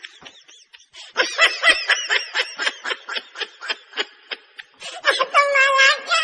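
High-pitched laughter: a fast run of short cackling bursts that ends in one long held note near the end.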